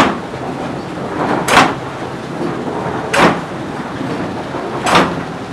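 A windmill's jog scry (the 'bonker') knocking at a steady beat, one heavy knock about every one and a half seconds, four in all, over the continuous rumble of the mill machinery turning.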